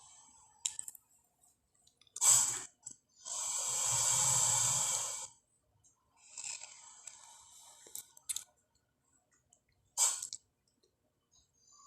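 Film creature sound effects for a giant mutated crocodile: breathy hisses and exhalations separated by silences. A short sharp burst about two seconds in, then a long hiss of about two seconds, a fainter breath, a couple of clicks, and another short burst near the end.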